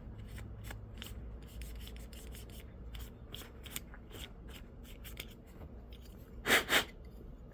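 Rubbing and handling of a car's plastic power-window switch while it is cleaned, with many small scattered clicks. Near the end come two short puffs of air, about a third of a second apart, to clear dust from the switch.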